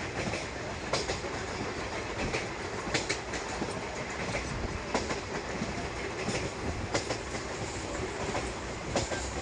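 Indian Railways passenger train running, heard from on board: a steady rolling rumble with sharp wheel clacks over the track joints, roughly one a second.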